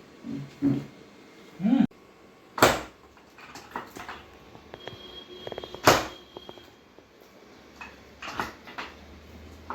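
Hands-on chiropractic treatment: two sharp, loud knocks about three seconds apart, with lighter taps and knocks between them.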